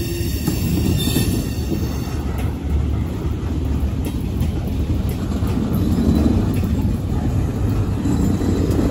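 Mixed freight cars of a CSX manifest train rolling past: a steady rumble of steel wheels on the rails.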